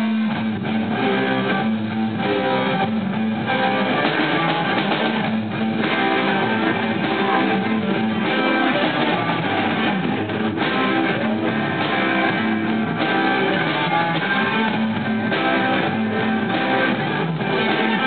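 A small rock band playing together: electric guitars through small combo amps over a drum kit with cymbal and drum hits, jamming as a warm-up.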